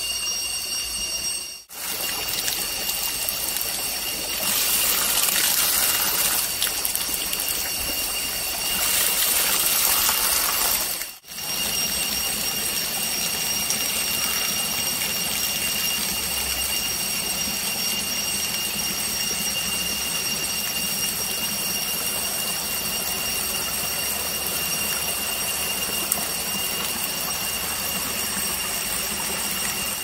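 Mountain water flowing and splashing, louder in two stretches, under a steady high-pitched ringing drone. The sound drops out for a moment twice: near the start and about eleven seconds in.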